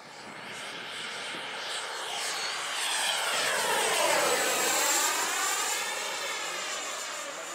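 XFly T-7A Red Hawk's 64mm electric ducted fan making a low pass. Its rushing whine swells to its loudest about four seconds in, with a high tone that drops slightly in pitch as the jet goes by, then fades as it climbs away.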